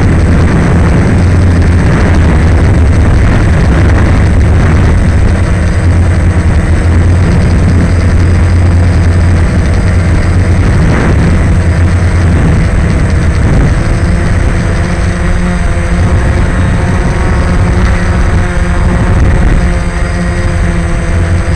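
DJI Phantom quadcopter's four propellers and motors heard from its own onboard camera: a loud, steady low drone with a faint higher hum and wind on the microphone.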